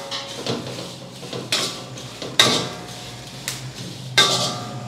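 Metal ladle scraping and clanking against a steel kadai while stirring coriander seeds and curry leaves frying in oil. A few sharper clanks ring briefly, the loudest near the end.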